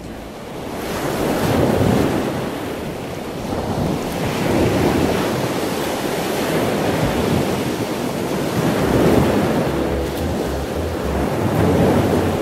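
Small surf waves breaking and washing around the shallows, swelling and falling every few seconds, with wind rumbling on the microphone.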